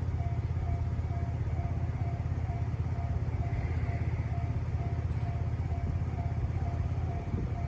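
Japanese level crossing alarm ringing steadily, about two strikes a second, over a heavy low rumble.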